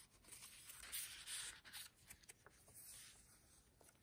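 Faint rustling of paper and card as journaling cards are handled and a journal page is turned.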